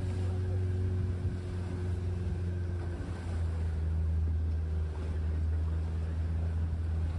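Small tour boat's motor running with a steady low hum while under way. The note shifts slightly about three seconds in.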